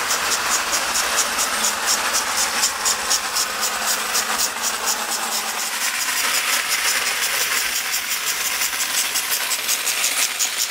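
Lionel standard gauge tinplate toy train running on three-rail track: the electric locomotive's motor and gears whirring steadily, with a rapid, even clicking and metal rattle from the wheels and cars on the rails.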